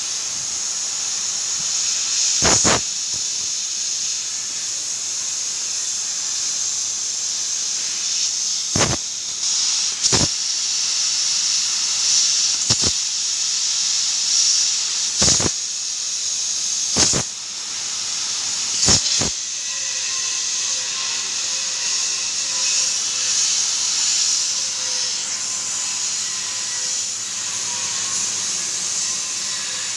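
Laser cutting machine cutting steel sheet: a steady high hiss from the cut and its assist gas, broken by sharp pops several times in the first twenty seconds. A faint whine joins in after about twenty seconds.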